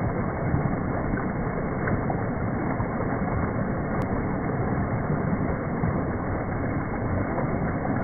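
A rock waterfall in a garden pond, with water spilling steadily over a stone ledge and splashing into the basin below as an even, unbroken rush.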